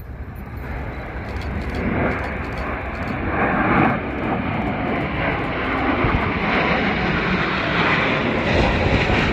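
Jet noise from a formation of Blue Angels F/A-18 jets passing low overhead, growing louder over the first few seconds and staying loud.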